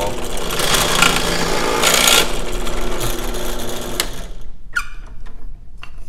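Drill press running with a 7/16-inch bit boring a depth-stopped hole into a wood block held in a cross slide vise: steady motor hum under the noise of the cut, which stops about four seconds in. A few light clicks follow.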